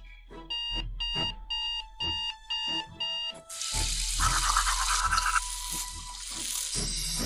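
Cartoon sound effects over a light background beat: six quick high electronic beeps, then a tap running over soapy hands with a rhythmic scrubbing.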